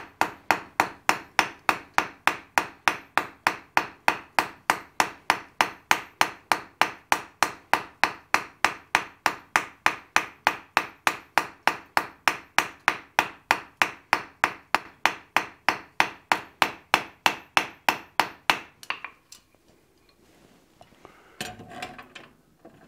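Hand hammer striking a red-hot steel bar on the anvil face in a steady rhythm of about three blows a second, drawing out and rounding a taper. The blows stop a few seconds before the end, followed by a brief clank as the hammer is set down on the anvil.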